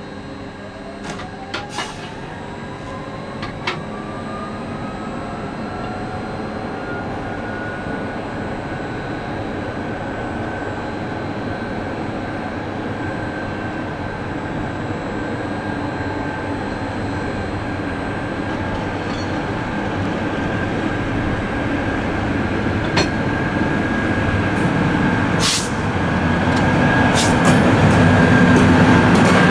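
MÁV class V63 'Gigant' electric locomotive pulling its train out of the station. A whine rises in pitch over the first ten seconds or so and then holds steady, while the running noise grows steadily louder as the train approaches. A few sharp clicks come near the start and again near the end.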